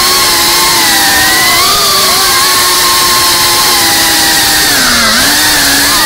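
GEPRC Cinelog 35 FPV cinewhoop's brushless motors and propellers whining, as picked up by the camera mounted on the drone. The pitch rises and falls with the throttle and dips low about five seconds in.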